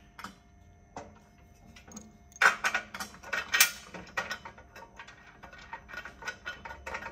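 Steel bolts and washers clicking and rattling against a steel bike-carrier channel as they are fitted by hand. A few single clicks, then a dense flurry of sharp metal clicks from about two and a half seconds in, thinning to lighter scattered clicks.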